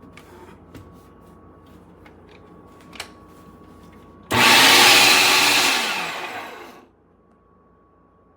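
Electric meat grinder motor starting suddenly and running loud for about two seconds, then spinning down with falling pitch and stopping.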